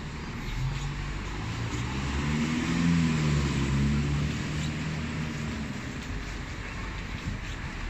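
A motor vehicle's engine passing close by, a low hum that swells to its loudest about three seconds in and then fades, over steady city traffic noise.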